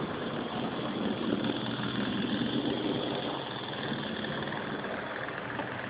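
Model train running along the track, a steady mechanical hum and whir.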